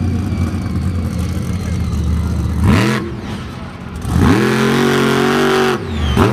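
Monster truck engine running low and steady, then revving hard: a short rising blip about three seconds in, then a bigger rev held high for about a second and a half as the truck lifts onto its rear wheels. It drops off and picks up again near the end.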